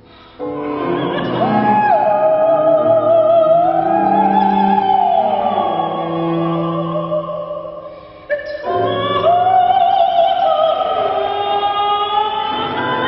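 Classically trained soprano singing an Arabic art song with wide vibrato, accompanied by piano and cello. She sings two long held phrases, with a brief break about eight seconds in.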